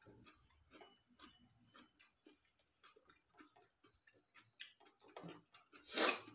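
Eating by hand from steel plates: irregular small clicks and smacks of fingers mixing rice against the plates, with one louder noisy burst near the end.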